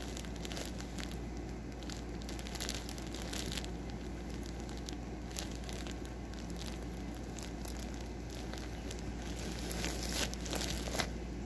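Clear plastic bag full of yarn skeins crinkling as it is handled and turned over. Louder crinkles come a couple of seconds in and again near the end.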